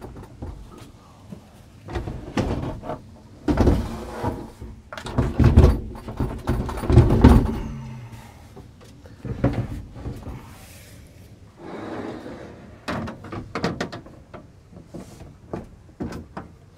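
Irregular clunks, thuds and scraping as a loaded fridge is shifted off an Alu-Cab tilting fridge slide and the slide's metal tray is handled and lifted off. The heaviest thuds come between about a quarter and half of the way through.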